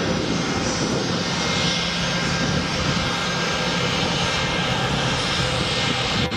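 Delta Boeing 717-200's twin rear-mounted Rolls-Royce BR715 turbofans running steadily as the jet moves past on the ground: a loud, even rush with a faint steady whine in it.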